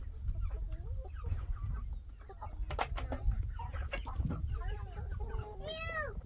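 Domestic chickens clucking, with a string of short calls and a louder drawn-out call near the end.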